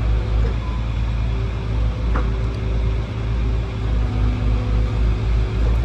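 Excavator engine running with a steady low rumble, with a sharp knock about two seconds in and another at the end.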